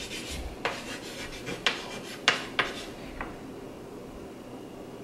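Handwriting on a small hand-held board: a handful of short, quick strokes in the first three seconds, then it stops.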